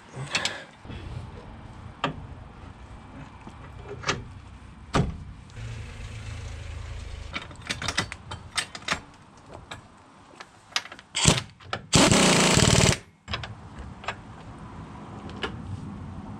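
Hand tools working on a car's front suspension bolts: scattered metallic clicks and clanks from a ratchet and wrench. About three-quarters of the way through comes one loud burst lasting about a second.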